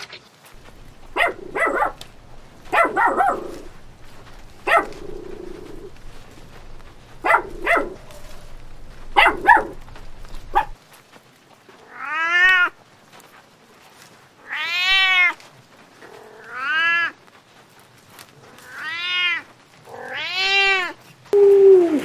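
Kittens meowing: a string of clear meows that rise and fall in pitch, one every two seconds or so, starting about midway. Before that come shorter, choppier animal calls over a low hum.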